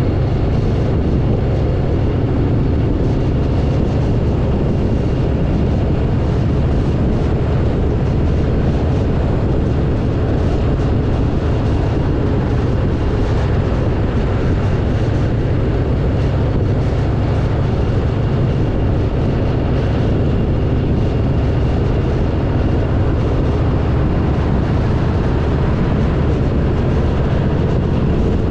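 Harley-Davidson V-twin motorcycle running steadily at riding speed, a constant low engine drone mixed with an even rush of wind and road noise.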